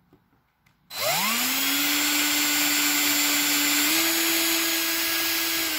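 Cordless drill starting about a second in, its motor whine rising quickly to a steady pitch as a small bit drills a pilot hole through a plastic car bumper. The pitch steps up slightly about four seconds in.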